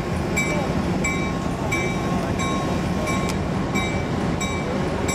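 Union Pacific EMD E9 diesel locomotive rumbling as it moves slowly, its bell ringing in a steady rhythm about once every two-thirds of a second.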